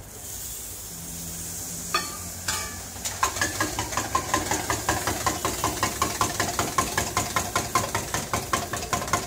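Hot iron griddle hissing steadily. About three seconds in, a metal spoon starts clinking rapidly and evenly against a steel tumbler, about four strikes a second, as something is beaten in it, over the continuing hiss.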